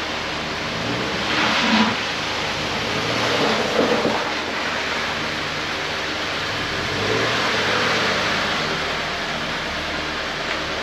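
Car with a freshly installed FA-20 2.0-litre flat-four running on the road: engine and road noise with the engine note swelling a few times as it is driven.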